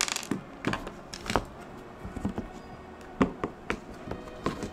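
Scattered clicks and light knocks of hands and a screwdriver on an induction cooktop's circuit board and plastic case, as a screw is undone and the board with its metal heatsink is lifted out.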